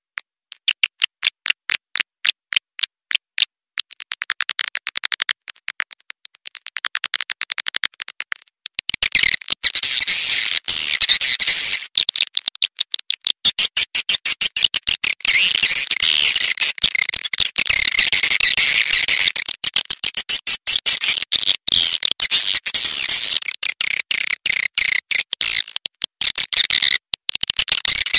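Swiftlet lure call: edible-nest swiftlets' rapid trains of clicks, then from about nine seconds in dense, high twittering chirps over continuing clicks.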